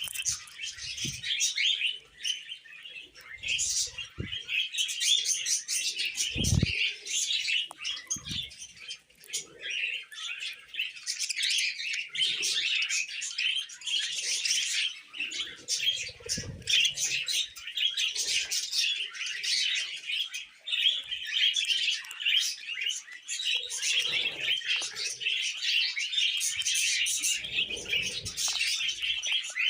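Pet budgerigars chattering and chirping continuously in a dense, busy warble, with a few soft low thumps, the clearest about six seconds in.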